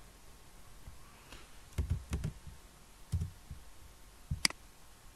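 Computer keyboard and mouse clicks: a few soft key taps near the middle, then one sharp mouse click about four seconds in.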